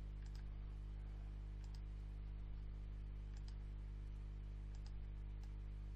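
A handful of faint computer mouse clicks, spread across a few seconds, over a steady low hum.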